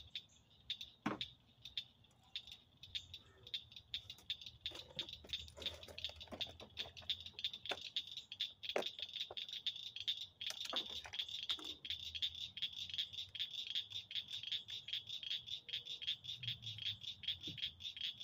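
Evening chorus of crickets: a steady, fast pulsing high trill that grows thicker a few seconds in. A few sharp clicks and knocks sound over it.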